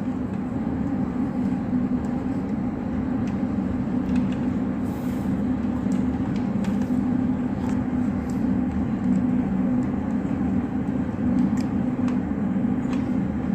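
Steady mechanical hum, like a fan or air conditioner running, with a few faint clicks scattered through it.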